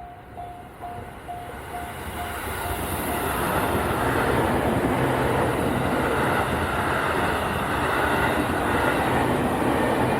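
Japanese level-crossing warning bell ringing about twice a second, drowned out about three seconds in by a 783 series electric train running through the crossing, a loud, steady rush of wheels on rail.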